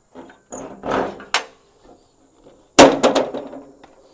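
A metal door on a sawmill's head being swung shut: some handling noise and a light click about a second in, then a loud slam near three seconds with two quick knocks right after it.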